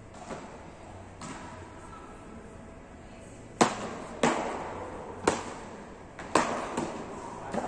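Beach tennis paddles striking the ball in a rally: a series of sharp pops about once a second, starting about halfway through, each echoing in a large hall.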